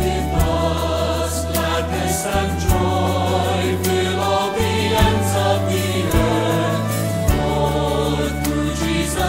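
Background music: a choir singing over long held low notes.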